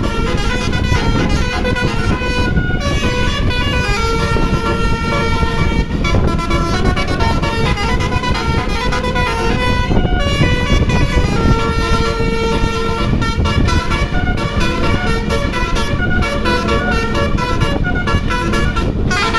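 Bus 'basuri' telolet horn, a multi-tone air horn, playing a melody. It runs as a quick string of stepped notes, a few of them held longer, over a steady low rumble.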